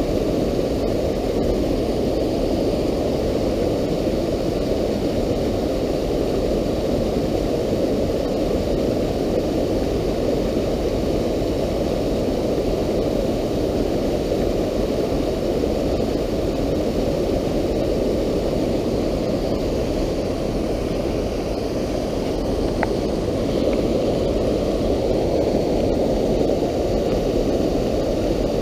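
Fast, shallow stream rushing through whitewater: a steady, even rush of water.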